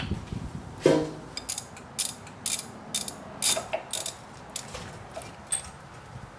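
Ratchet wrench clicking in short runs, about two a second, as it loosens the Torx bolts on a 1988 Pontiac Fiero's rear brake caliper. A sharp metal knock comes about a second in.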